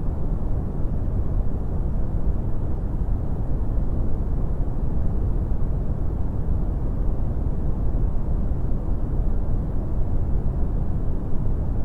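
Steady brown noise: a deep, even rushing hiss with most of its energy in the low end, fading toward the highs.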